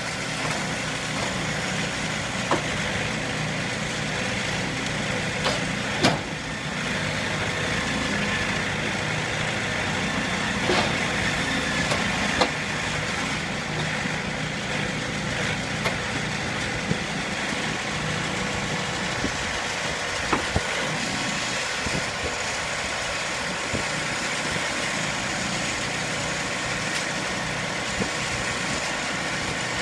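Sawmill machinery running steadily with an engine hum, with occasional sharp knocks scattered through it.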